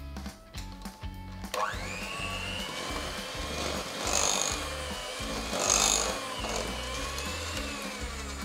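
Electric hand mixer switched on about a second and a half in, its motor whining steadily as the beaters work flour into creamed butter and sugar for a crumbly cookie dough, with two louder swells in the middle. Background music plays underneath.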